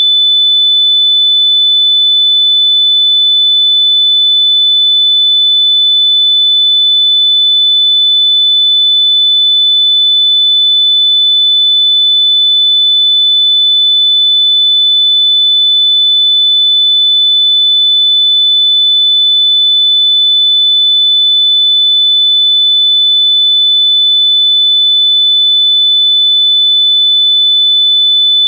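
A loud, steady, high-pitched electronic pure tone, held at one unchanging pitch throughout.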